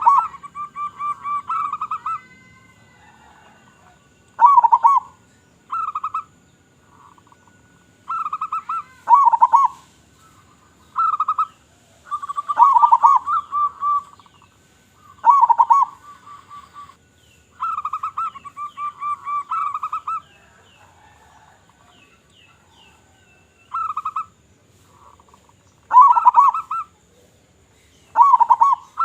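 Zebra doves (perkutut) calling: repeated phrases of rapid staccato cooing notes mixed with louder coos that dip in pitch, coming every second or two, with a pause of a few seconds about two-thirds of the way through.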